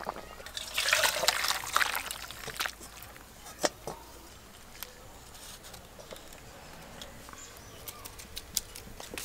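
Thick fish curry poured from a metal kadai into a steel bowl, the liquid splashing for about two seconds near the start, followed by two sharp metal clinks a little later.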